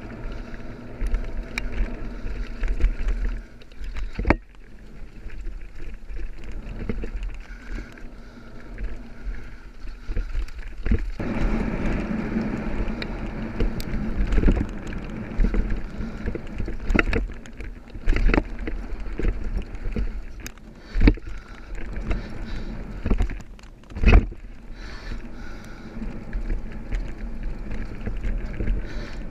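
Mountain bike descending a dirt trail at speed: a steady rumble of tyres and rushing air on the camera microphone, broken by frequent sharp knocks and rattles as the bike hits bumps, one of them loud about two thirds of the way in.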